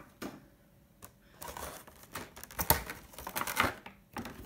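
Clear plastic blister packaging being handled, giving a series of clicks and crinkles that are loudest a little under three seconds in and again about a second later.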